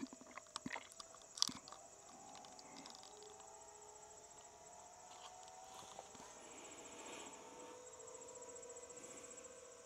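Faint steady hum of the solar tracker's electric linear actuators driving the panel frames back the other way, under a steady chirping of crickets. A few small clicks come in the first second or so.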